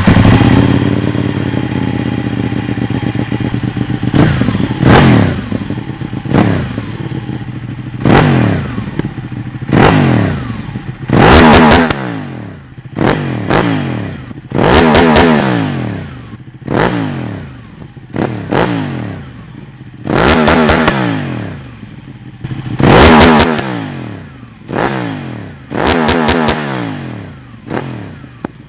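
Ducati Panigale 1299's L-twin engine, through a Dominator aftermarket exhaust, running steadily for a few seconds and then blipped hard over and over. Each rev climbs quickly and drops back toward idle.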